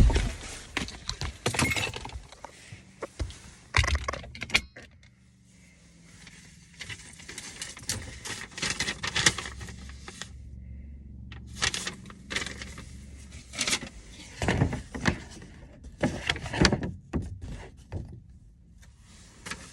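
Irregular handling noises: a string of clicks, knocks and rustles at uneven intervals, with a few louder knocks and two short quiet pauses.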